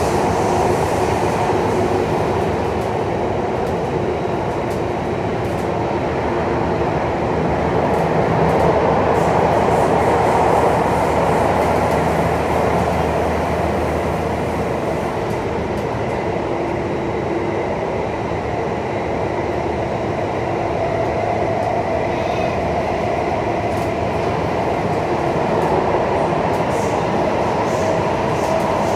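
Alstom C830 Circle Line metro train running, heard from inside the carriage: a steady rumble of wheels on rail with a faint motor hum whose pitch shifts partway through.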